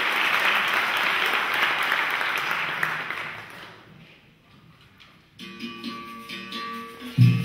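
Audience applause fading out over the first few seconds, then after a short pause a small plucked string instrument starts playing a new tune. Loud drum hits come in near the end.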